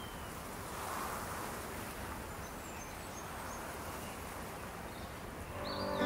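Outdoor ambience: a steady hiss of background noise with a few faint, high bird chirps. Acoustic guitar music fades in near the end.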